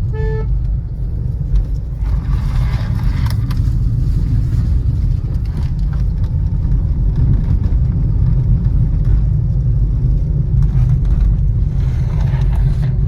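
A car's engine and road noise: a steady low rumble as it drives up a winding hill road. A short beep sounds right at the start.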